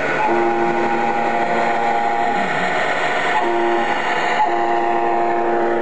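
Air horn from a radio-controlled model semi-truck's sound module, sounding as a steady multi-note chord: a long blast of about three seconds, a short one, then another long one starting about four and a half seconds in.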